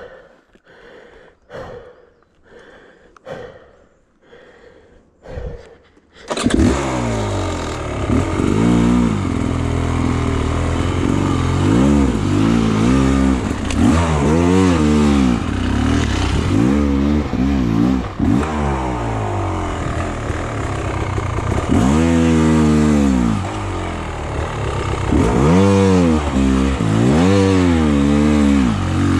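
Heavy rhythmic breathing for about six seconds, then a dirt bike's engine starts abruptly and runs, revving up and down again and again as the bike rides along the trail.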